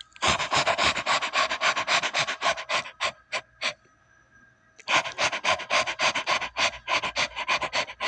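A person imitating a Maltese dog's panting with their voice: quick breathy huffs, about six a second, in two runs with a pause of about a second in the middle.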